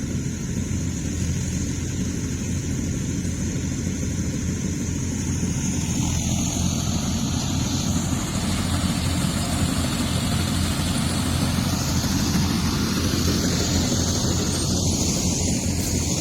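A diesel farm machine's engine running steadily in a rice field during harvesting, with a constant low hum.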